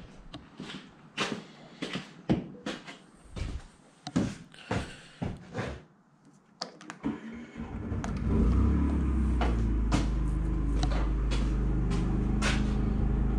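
A string of irregular knocks and clatter, like a door and things being handled. About halfway through, after a short quiet gap, a steady low hum starts and keeps going.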